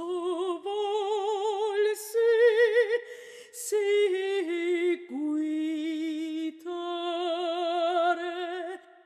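A woman's solo voice singing unaccompanied in a lyrical style: long held notes with a wide vibrato, with short pauses between phrases. The last note fades out near the end.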